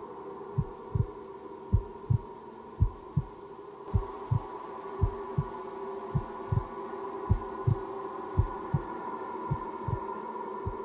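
Heartbeat sound: pairs of low thumps, lub-dub, a little more than once a second, over a steady droning hum of several held tones.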